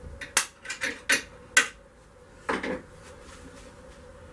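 Sharp clicks and clacks of metal and wood parts being handled on a homemade railgun clamped in a bench vise. About six quick knocks come in the first two seconds, then a short rattle about two and a half seconds in.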